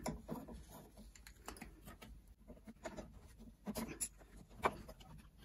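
Faint, irregular light clicks and taps of needle-nose pliers on a small carburettor as a rubber fuel line is worked off it, a few sharper clicks about four seconds in.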